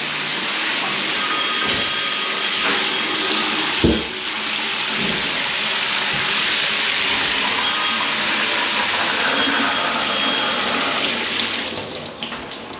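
Shower water running from the head at full mains pressure, a steady rush with no control because the newly fitted quarter-turn isolating valves on the concealed shower valve are open. The rush fades away near the end as the valves are turned off, with a single knock about four seconds in.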